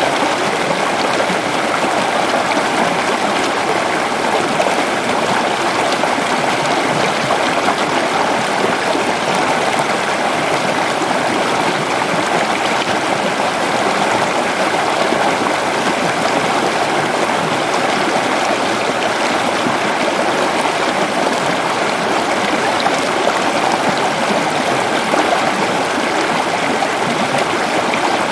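Waterfall in a forest: a steady, loud rush of falling and splashing water with no change.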